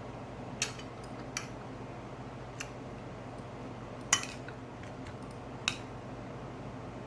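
Cutlery clinking against a plate at a meal: about five separate light clicks, the loudest about four seconds in, over a faint steady hum.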